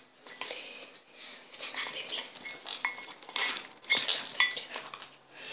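A utensil clinking and scraping against a bowl in irregular strokes, with a few brief ringing clinks, as ingredients are stirred together.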